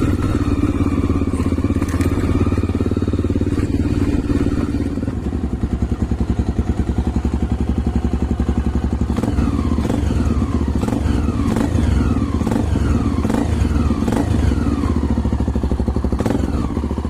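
Honda XR 250 Tornado's single-cylinder four-stroke engine running steadily. About halfway through, a regular run of short falling tones sets in, about one a second, over the engine.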